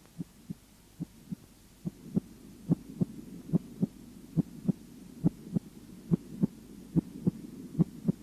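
Human heart sounds heard by auscultation: regular paired first and second heart sounds, lub-dub, about 70 beats a minute. They grow louder about two seconds in, with a faint low hiss underneath.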